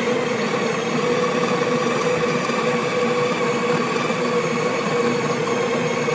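The built-in conical burr grinder of a Breville Barista Express espresso machine running steadily, grinding coffee beans straight into the portafilter. Its motor gives an even, unbroken whir.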